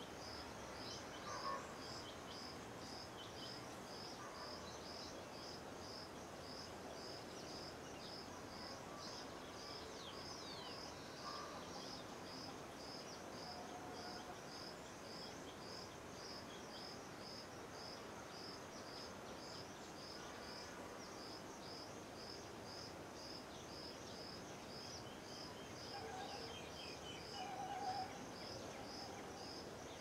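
Outdoor background in which an insect chirps steadily in a high, even pulse about two to three times a second, with a few short bird calls now and then, the loudest about a second and a half in and near the end.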